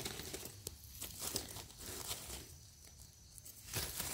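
Faint rustling and crinkling of dry leaf litter as gloved hands and a knife scrape and dig through it on the forest floor, with scattered soft crackles.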